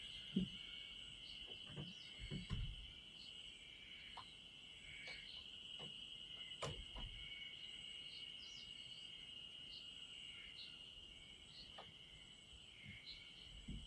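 Insects singing in a steady, unbroken high trill, with short higher chirps scattered through it and a few faint clicks and low thumps.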